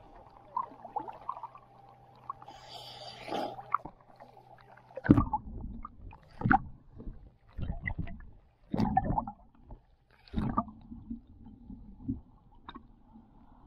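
Pool water sloshing and splashing over an action camera held at the waterline, turning to muffled, irregular gurgling thumps as it dips under the surface from about five seconds in. A steady low hum runs under the first five seconds.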